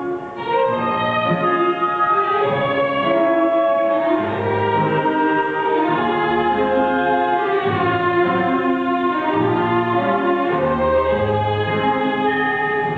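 Orchestral music with violins playing a slow melody over a bass line.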